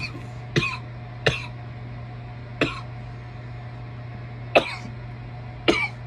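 A person coughing hard from bong smoke: six short, sharp coughs at uneven intervals, the loudest about four and a half seconds in.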